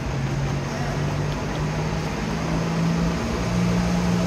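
Silver Line bus moving along the busway: a steady low hum that rises slowly in pitch and steps up a little past three seconds in, over a broad rumble.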